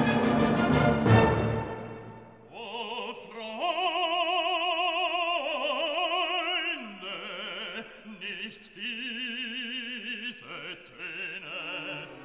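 Background classical music: an orchestral passage fades out about two seconds in, then an operatic voice sings long held notes with a wide vibrato.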